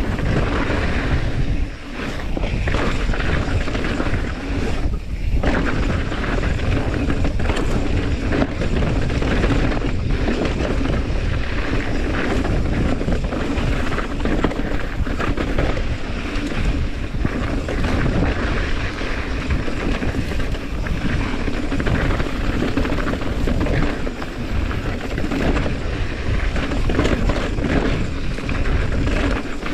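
Mountain bike ridden fast down a dirt and rock singletrack: tyres rolling over dirt and stones, with frequent knocks and rattles from the bike over bumps and wind buffeting the camera's microphone.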